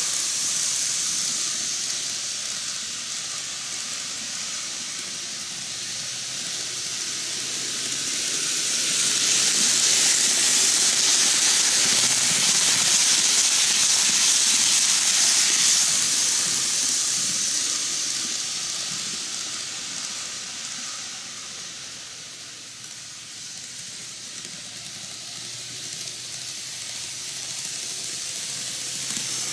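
N-gauge model electric trains running on curved double track: a high, steady rushing hiss of the small wheels and motors on the rails. It swells to its loudest as a train passes close to the microphone about a third of the way in, fades, then rises again near the end.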